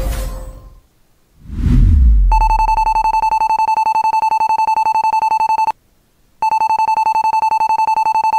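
A deep boom, then a loud electronic ringing alarm: one steady pitch with overtones, trilling rapidly. It sounds for about three seconds, breaks off for under a second, then rings on.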